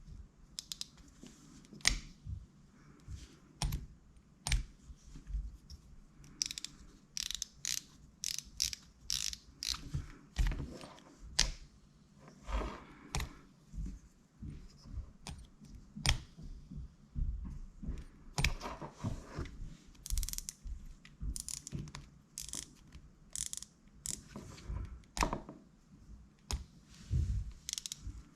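Shimano Calcutta Conquest BFS baitcasting reel worked by hand, giving irregular mechanical clicks and short ratcheting runs throughout.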